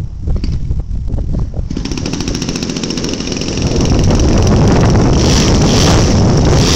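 Large-scale Extra model airplane's engine starting: wind rumble and a few knocks, then the engine catches about two seconds in and runs with a rapid firing rattle, getting louder about two seconds later.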